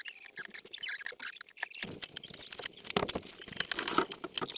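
Handling noise from DIY work: a run of light clicks, taps and scrapes that gets busier and louder about two seconds in.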